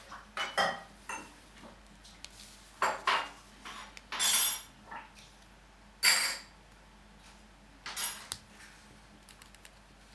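Hands handling a marker pen and folded paper on a wooden tabletop: a string of short clicks, taps and brief scrapes, the loudest a little over four and about six seconds in.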